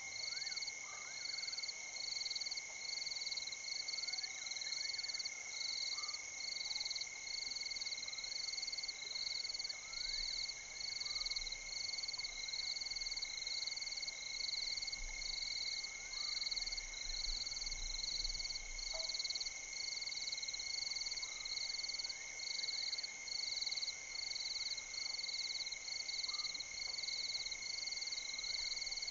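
Night chorus of frogs and insects at the water: a steady high trill, a high call pulsing a little over once a second, and a continuous shrill hiss above them.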